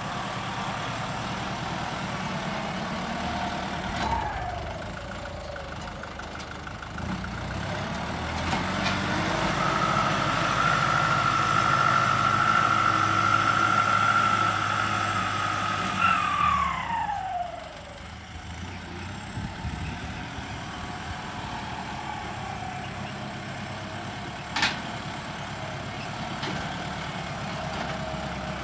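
Kubota L50 turbo tractor's diesel engine running under load while its front blade pushes and levels loose soil. It revs up with a high whine for several seconds, then drops back as the whine falls away, and there is a single sharp knock about three quarters of the way through.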